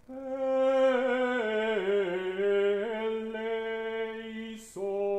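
A small mixed a cappella vocal ensemble singing slow, held chords. About a second and a half in, the lower parts slide down. Near the end there is a short break, then a new chord is held.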